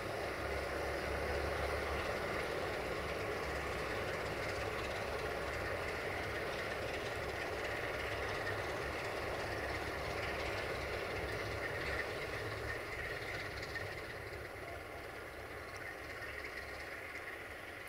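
Diesel engine of a CFR class 060-DA diesel-electric locomotive running with a steady low rumble as the locomotive moves slowly away while shunting. It fades somewhat in the last third, and there is one sharp click about two-thirds of the way in.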